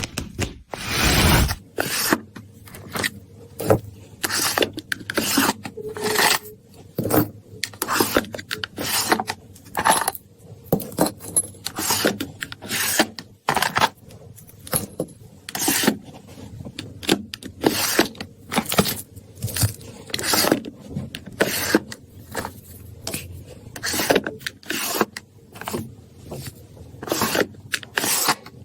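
A loud continuous sound cuts off about a second and a half in. After that come irregular clicks, scrapes and rattles of small hard objects being handled, one or two sharp sounds a second.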